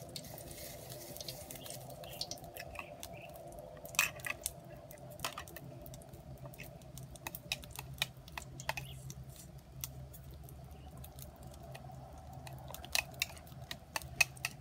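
Scattered small clicks and taps of hand food preparation: a small knife working shallots and raw fish pieces being handled into a plastic bowl, over a steady faint hum.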